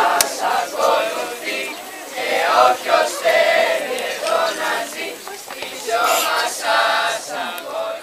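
A chorus of young voices chanting together in loud phrases with short breaks between them, fading out near the end.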